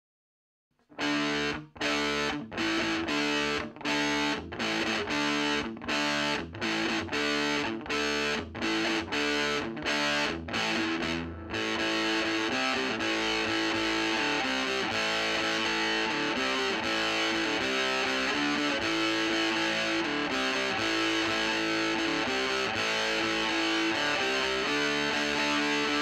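Electric guitar played through an Ever Play RG-60 solid-state 2x12 combo amp on its overdrive channel, with a distorted tone. About a second in it starts with short, clipped chords separated by brief silences. From a little before halfway through it changes to continuous riffing.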